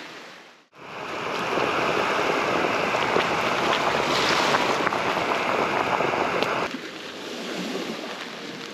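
Water at a rolling boil in a Jetboil stove's cooking cup over its gas burner: a steady hissing rush with fine crackling bubbles. About two-thirds of the way through it drops to a quieter hiss.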